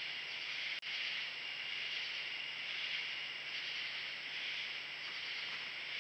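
Steady night chorus of insects, a dense high shrill that gently swells and fades, with a brief dropout in the sound about a second in.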